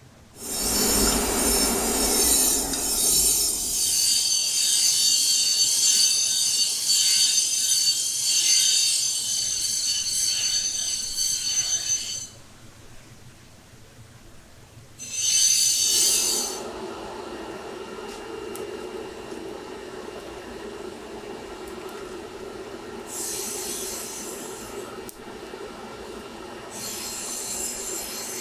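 Steel knife blade being ground on a power grinder: a high, screeching rasp for about twelve seconds that stops, then returns in short passes. Between the later passes a steady low hum carries on.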